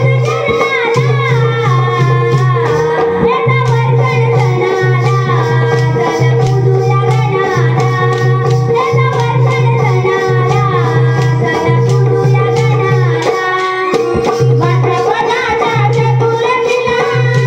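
Music: a sung, wavering melody over a shaker-like rattle, a steady held drone and a low bass note repeating in a steady pulse.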